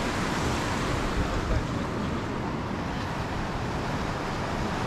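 Sea surf washing against the breakwater rocks, a steady rush of water, with wind gusting on the microphone.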